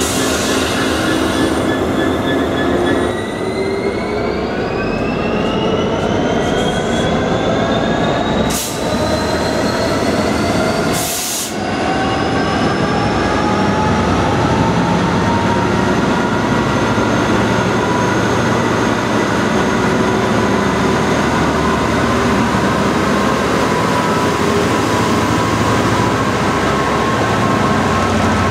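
DBS Class 66 diesel-electric locomotive pulling away with a loaded coal train, its two-stroke V12 engine opening up under load. A loud running tone starts rising in pitch about three seconds in, climbs for several seconds, then holds steady as the locomotive passes close by.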